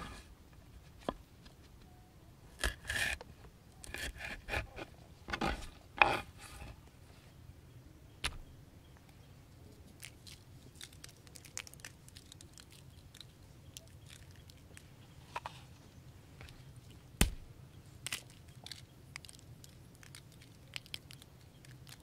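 A knife cutting and scraping across a wooden board in several short bursts of strokes, then mostly quiet handling with scattered light clicks and one sharp knock.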